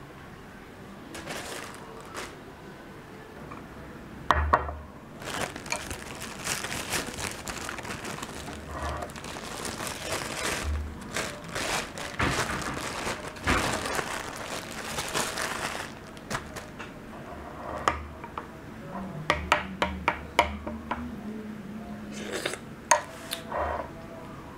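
Plastic bread bag crinkling and rustling for several seconds as bread is handled. A spoon then clinks sharply against a ceramic soup bowl several times near the end.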